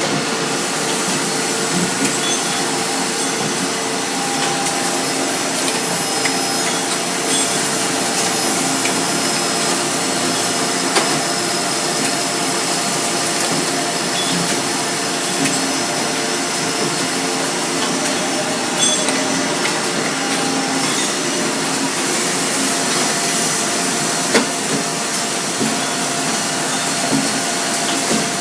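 Robotic production-line machinery running: a steady, dense machine noise with several constant tones and an occasional light click.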